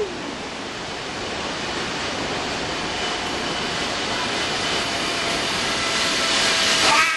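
Zipline trolley running along a steel cable: a steady rushing whir that grows slowly louder as the riders approach, with a faint steady whine coming in about halfway through.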